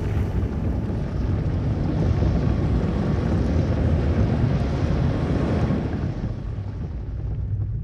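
Steady low rumble with a hiss on top, a sound-design drone under an animated title; the hiss thins out over the last couple of seconds.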